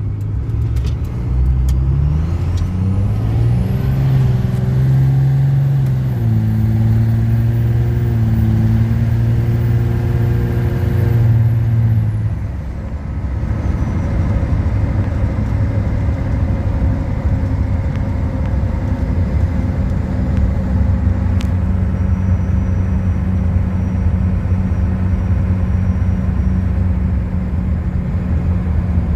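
Second-generation Cummins 5.9-litre inline-six turbo diesel pulling hard under full throttle. The engine note climbs, drops as the automatic upshifts, and holds under a high turbo whistle. About twelve seconds in the driver lifts off, the whistle falls away, and the engine settles into a steady cruise.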